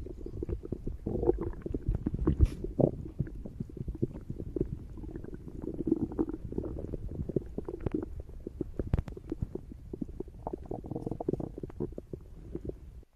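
A person's stomach growling: a continuous low rumble dotted with many small pops and clicks, cutting off suddenly near the end.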